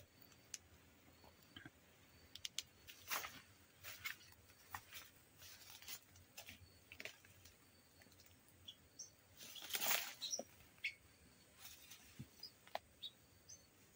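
Faint rustling and clicking of hands handling small birds and gear, with scattered short, high chirps from the small birds. The loudest rustle comes about ten seconds in.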